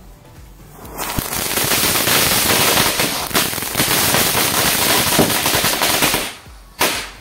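Diwali anar (flower-pot firework fountain) spraying sparks: a loud hissing rush full of rapid crackles, lasting about five seconds, then a single sharp bang near the end.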